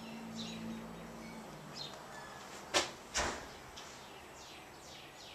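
Two sharp knocks about three seconds in, followed by small birds chirping outside in a run of quick, falling high chirps. A faint low hum is heard in the first second and a half.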